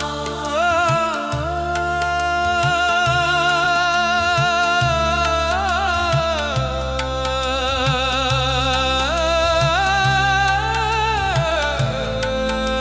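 Sikh devotional kirtan music: a wavering melodic line that glides between long held notes, over a steady drone and a regular low beat.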